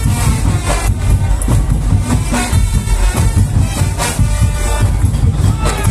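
Loud music with heavy bass and a driving percussion beat.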